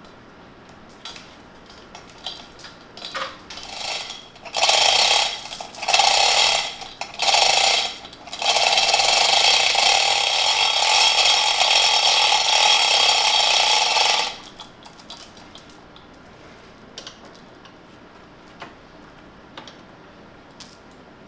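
Manual chain hoist lowering a heavy milling-machine vertical head: the hand chain is hauled through the hoist block in three short pulls, then about six seconds of continuous pulling that stops abruptly, with faint clinks of chain and metal before and after.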